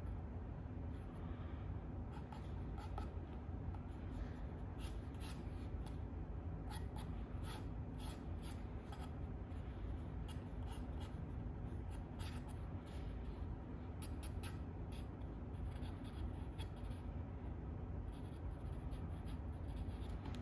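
Drawing tool scratching in short, irregular strokes across stone-paper sketchbook pages during figure sketching, over a steady low room hum.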